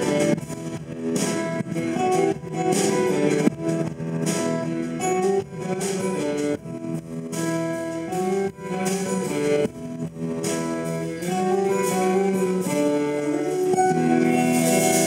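Live band playing an instrumental passage of a folk-rock song: strummed and picked guitars over bass guitar and drums, without singing.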